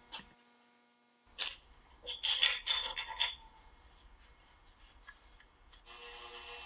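Metal lamp-top parts (brass spinnings, band rings and discs) being set down and shuffled on a workbench: a few sharp metallic clicks, then a quick run of ringing clinks, then faint ticks. Near the end a steady hum sets in.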